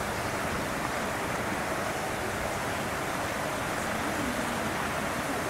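Steady outdoor background noise, an even hiss, with faint distant voices about four seconds in.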